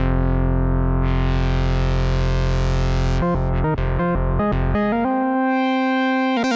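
Arturia PolyBrute analog polyphonic synthesizer playing a held chord whose filter opens about a second in, then a few short chord stabs and a sustained chord near the end.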